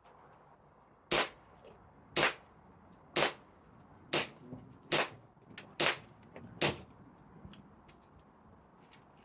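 Umarex Ruger SR1911 airsoft pistol firing seven single shots, about one a second, each a short sharp crack.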